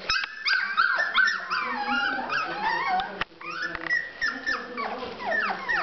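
Several seven-week-old bichon frise puppies whining and yipping together, high-pitched overlapping whimpers that slide up and down in pitch, with a brief break a little after three seconds in.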